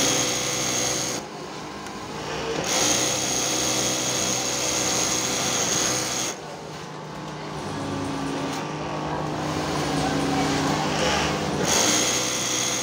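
Industrial lockstitch sewing machine stitching an armhole topstitch, running in spurts with a steady high whine. It runs briefly at the start, stops, runs again for about three and a half seconds, pauses for several seconds, and starts again near the end.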